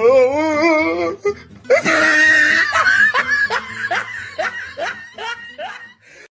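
A man's voice singing a long note that wavers with heavy vibrato for about a second, then a burst of laughter: a run of short 'ha' bursts that grow quieter and stop near the end.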